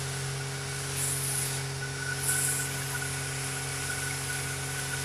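Steady engine hum at an even pitch, with two short bursts of hiss about one and two seconds in.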